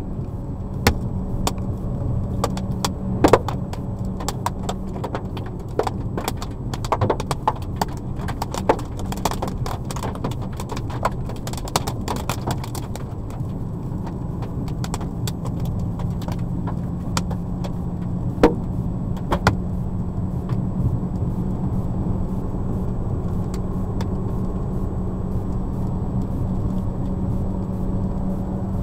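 A 2016 Ford Escape driving along, heard inside the cabin: a steady engine and road drone with a low hum. Scattered sharp clicks and taps come thick over the first half, then only now and then.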